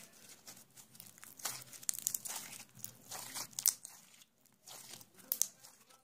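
Homemade slime being stretched, folded and squeezed by hand, giving irregular sticky crackles and pops. The loudest pops come a little past halfway and again near the end.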